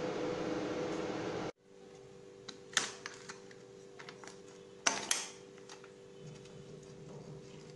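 A steady hum with hiss, like a fan or appliance running, cuts off abruptly about a second and a half in. Then come a few short, sharp clicks and taps, the loudest in a quick pair near the middle, as a hand handles the metal cake pan.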